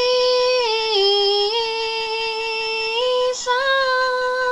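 A woman's solo singing voice holding long wordless notes. The pitch steps down about a second in and comes back up. Near the end there is a short break, then a new, slightly higher note.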